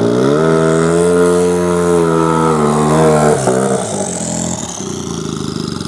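Drag snowmobile engine revved up, held at high revs for about three seconds, then let drop back to a rough, lower running sound.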